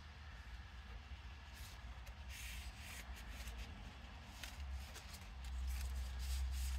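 Paper rustling with faint scattered taps as a small handmade paper booklet is handled, over a steady low hum that gets louder near the end.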